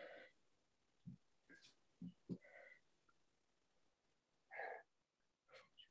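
Near silence: room tone with a few faint, short sounds, the most noticeable about four and a half seconds in.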